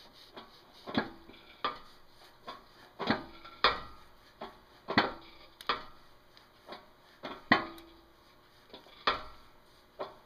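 Sharp metallic clicks and clinks, irregular, about one or two a second, some ringing briefly, as a repacked 1999 Dodge Ram front hub bearing assembly is turned by hand on a steel press bed.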